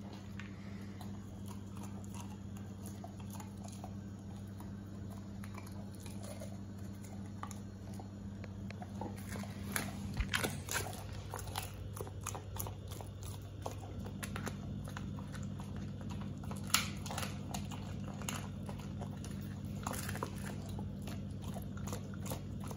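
English springer spaniel crunching and chewing a raw chicken wing, the bones cracking in sharp irregular crunches that grow louder and more frequent from about ten seconds in. A steady low hum runs underneath.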